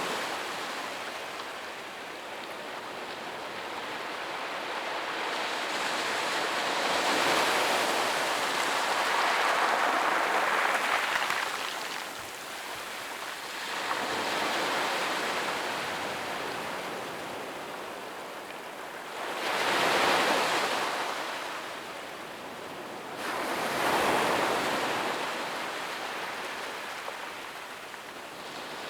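Gentle ocean waves breaking on a sandy beach and washing up the shore, swelling and fading in slow surges every few seconds, the biggest about 20 s and 24 s in.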